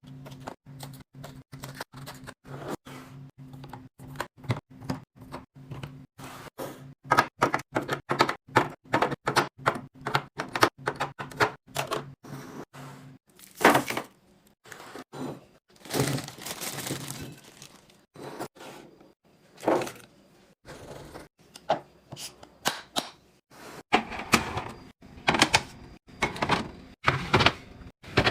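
Containers and packaging being handled and set down in a fridge during restocking: a rapid, uneven run of clicks, taps and thunks, with some crinkly handling between them. A steady low hum lies under the first half and stops about halfway through.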